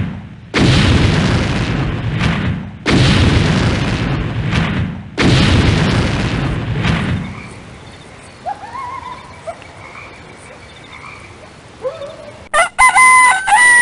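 Three loud booms about two seconds apart, each dying away. After a lull come pitched calls that bend in pitch, faint at first and loud near the end, like crowing.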